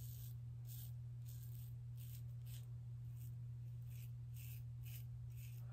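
Fatip Piccolo open-comb slant safety razor scraping through beard stubble under shaving lather, short faint strokes about twice a second, over a steady low hum.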